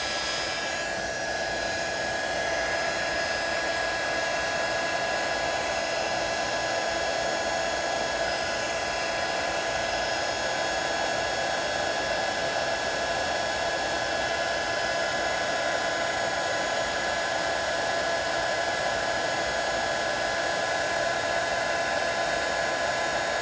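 Hot-air heat gun blowing steadily on an SMD resistor's solder paste: a constant rush of air with a steady fan whine that does not change.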